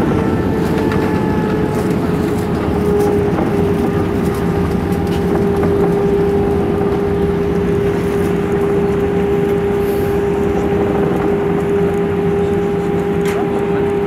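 Cabin noise of an Airbus A320 on the ground just after landing: a loud, steady rushing rumble with a steady engine tone that settles slightly lower in pitch in the first few seconds.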